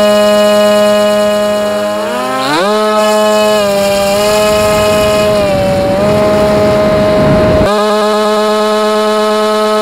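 Ritewing Drak's electric pusher motor and propeller, heard from the onboard camera: a steady whine that climbs sharply in pitch about two seconds in as the throttle goes up for the hand launch. Once airborne, a rushing wind noise runs over the motor sound and cuts off abruptly near the end.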